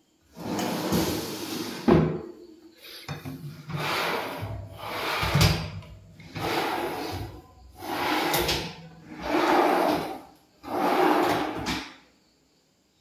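Modular kitchen drawers, including a pull-out wire basket, being slid open and shut over and over on their runners: about seven sliding strokes, several ending in a sharp knock as a drawer reaches the end of its travel.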